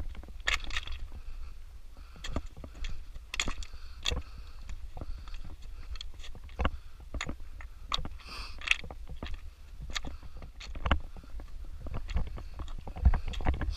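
Footsteps crunching irregularly on loose rock and stones, with a steady low rumble of wind on the microphone.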